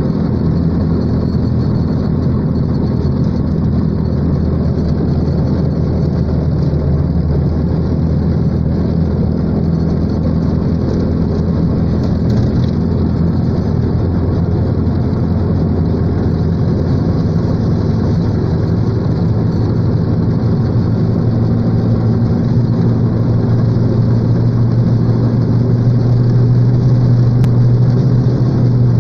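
A vehicle's engine running steadily as it drives along a dirt road, heard from inside the cabin, with steady road and tyre noise underneath. The engine hum grows a little louder in the last several seconds.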